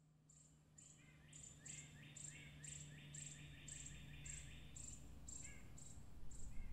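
Faint insects chirping, growing louder: a high chirp about twice a second, with a second, lower chirping layer joining about a second in and dropping away near five seconds.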